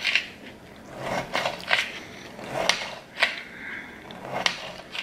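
Kitchen knife slicing through tomato and tapping down onto a cutting mat: about six uneven strokes.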